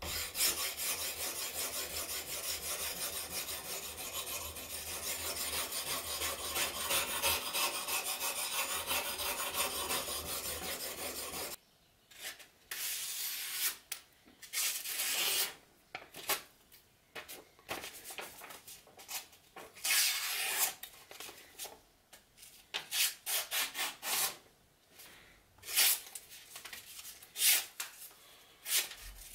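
A knife edge being sharpened on a guided angle-sharpening system: the abrasive bar rubs rapidly back and forth along the clamped blade in a steady run of strokes, which stops abruptly about eleven seconds in. It is followed by a series of short, separate swishes as the sharpened blade slices through a sheet of paper.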